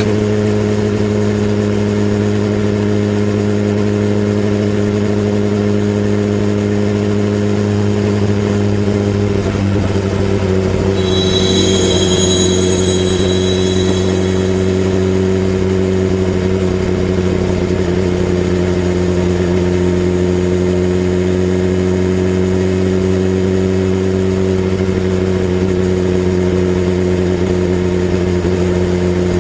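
BMW S1000RR inline-four engine running at a steady, unchanging speed. A brief high-pitched whine sounds over it about eleven seconds in and fades by fifteen seconds.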